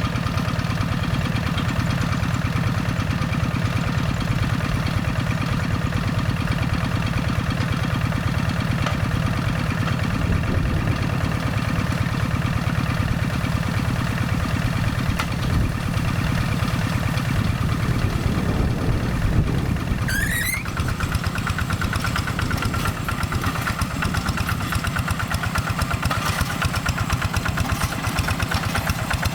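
Single-cylinder Quick G1000 Boxer diesel engine on a Kubota hand tractor running steadily with a fast, even chug. About two-thirds of the way in, a brief rising chirp sounds over it.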